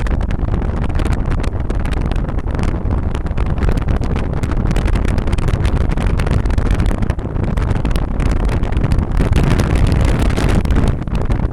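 A vehicle driving, a steady rumble of engine and road noise with many small knocks and rattles throughout.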